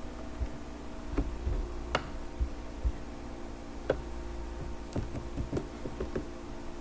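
Irregular clicks and taps on a computer keyboard and mouse, about one every half second to a second, over a steady low electrical hum.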